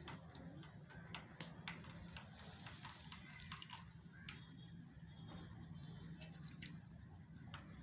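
Rabbits chewing and tearing fresh grass and leaves: faint, scattered crisp clicks and crunches over a low steady hum.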